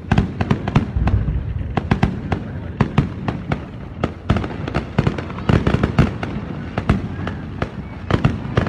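Fireworks display going off: a dense, irregular run of sharp bangs and crackles, several a second, over a continuous low rumble.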